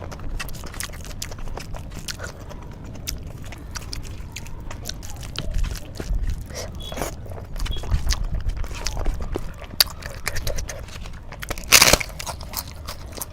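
Close-miked eating sounds: chewing with many small wet clicks and smacks of the mouth. A louder short rush of noise, such as a slurp or sharp breath, comes near the end.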